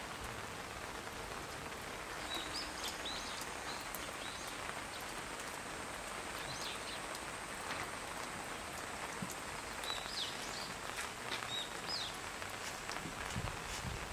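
Steady light rain falling on the ground, with a bird giving short high chirps a few times.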